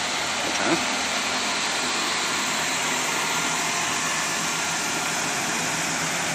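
MAN truck's engine running steadily to drive its hydraulic loader crane, which is lowering a heavy underground waste container.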